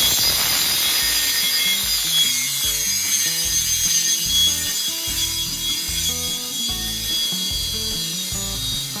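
Power tool running steadily on steel roll-cage tubing, a continuous high hiss, with background music under it.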